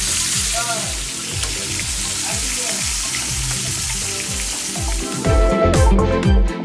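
Whole tilapia sizzling as they fry in oil in a pan, a dense steady hiss over background music with a steady bass beat. The sizzle stops about five seconds in, leaving only the music.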